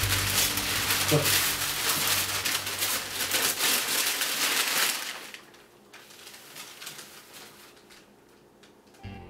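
Newspaper wrapping being torn and crumpled off an object by hand: dense paper rustling and ripping for about five seconds, after which it drops to a faint hush.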